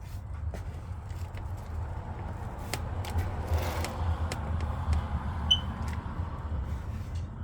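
Hands digging and rummaging through damp potting soil to pull out potatoes: scattered scraping and crackling clicks, over a steady low rumble.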